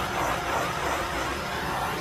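Hand-held propane torch flame hissing steadily as it is swept over fresh epoxy on a turning tumbler to pop micro bubbles.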